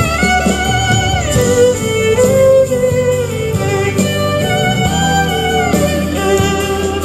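Solo violin playing a slow pop melody with vibrato over a backing accompaniment with guitar and bass.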